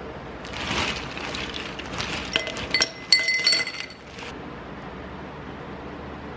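Glassware clinking and clattering, a run of knocks over about three and a half seconds with a few louder, ringing clinks near the end.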